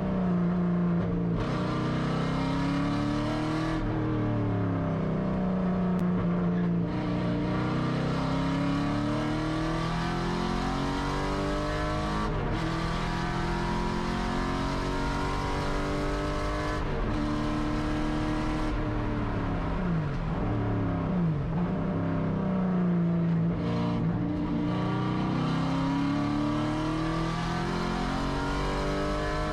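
The 7.0-litre LS7 V8 of a Camaro Z/28.R race car at hard throttle on track, heard from inside the cabin. Its pitch repeatedly climbs through the gears of the six-speed manual and falls away with shifts and braking, with a deep drop and rise a little past two thirds of the way through.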